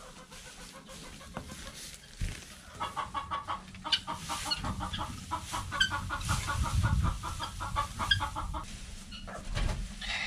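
Hens clucking in a long run of rapid, repeated notes, over the rustle of straw being pitchforked into a wheelbarrow.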